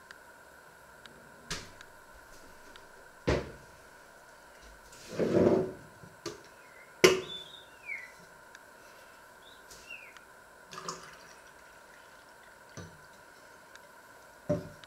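Kitchen items being handled on a wooden counter: a thermos flask, a coffee filter cone and a mug knocked and set down, several separate clunks. There is a second-long rushing sound about five seconds in and two brief falling squeaks, over a faint steady hum.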